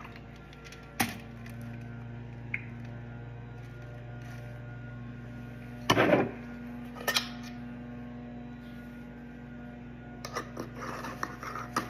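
A steady low electrical hum, with handling noises from cups and a jar on a foil-covered table: a sharp click about a second in, a loud knock around six seconds in and a smaller one a second later, then light clatter and rustling near the end.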